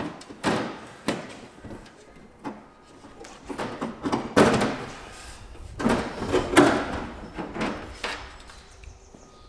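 Clunks, knocks and rattles of a light aircraft's sheet-metal engine cowling being handled and lifted at the nose, in a scattered series with the loudest knocks about halfway through.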